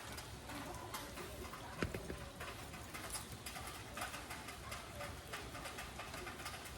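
Rain dripping: an irregular patter of drops ticking, with one dull thump about two seconds in.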